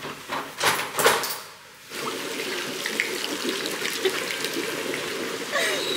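A few knocks, then, after a cut about two seconds in, water running steadily.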